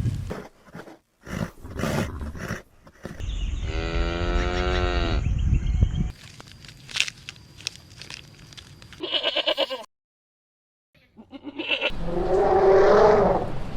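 Goats bleating in several separate calls: a long, slightly wavering bleat starting about three seconds in, a short quavering bleat around nine seconds, and another bleat near the end. Abrupt cuts and a brief silence fall between them.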